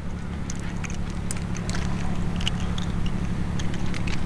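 A steady low engine drone that grows slightly louder, with scattered light clicks and ticks over it.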